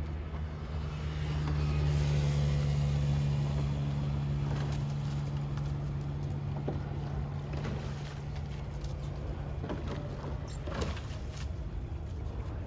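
An engine runs with a steady hum, growing louder over the first two seconds and then slowly fading away. A few sharp clicks come near the end.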